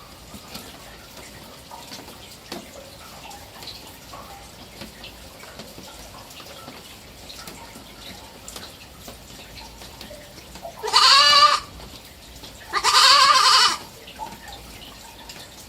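Three-month-old kid goat bleating twice, two wavering calls about a second apart in the second half, the second a little longer.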